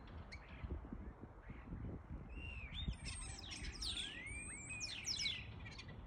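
Starlings calling from a treetop: a run of whistles, rising and falling slurs and clicking chatter, busiest from about two seconds in until just before the end, over a low rumble.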